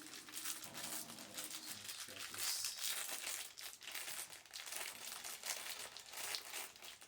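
Packaging crinkling and rustling with small clicks while an Intel Arc graphics card and its low-profile bracket are handled.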